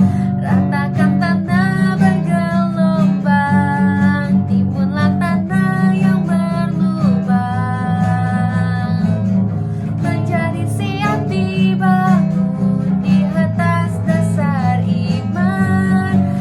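Worship-song music: strummed acoustic guitar over a steady bass, with a melody line weaving above it.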